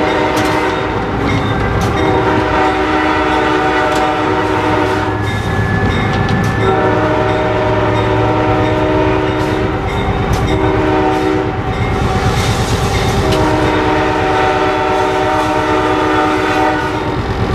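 Diesel locomotive's multi-chime air horn heard from inside the cab, sounding the grade-crossing signal: two long blasts, a short one, then a long one. A steady low rumble of the running train lies underneath.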